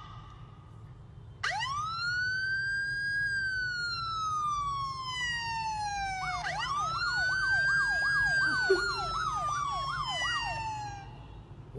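Recorded siren played through a phone's speaker. A wail sweeps up about a second and a half in and slides slowly down, then sweeps up again with a fast warble of about two cycles a second rising and falling over it, fading near the end.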